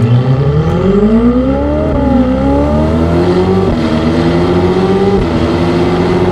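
Ferrari 488 Pista's 3.9-litre twin-turbo V8, breathing through a Brooke Race Exhaust with an X-pipe, accelerating hard from a standstill. The revs climb, drop at quick upshifts about two, three and a half, and five seconds in, and climb again after each one.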